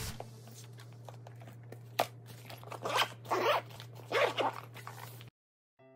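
Zipper of a soft insulated lunch bag being pulled shut in several quick scraping strokes about two to four and a half seconds in, with a low steady hum underneath; all sound cuts off shortly before the end.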